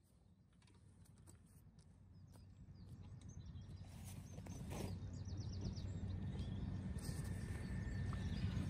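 Wind rumbling on the microphone, growing steadily louder, with footsteps crunching on a gravel path and a few faint bird chirps.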